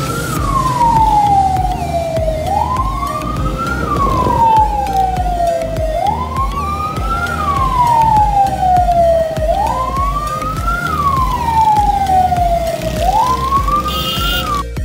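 Escort vehicle's siren wailing in a repeating cycle: each sweep rises quickly and then falls slowly, about every three and a half seconds, with five peaks.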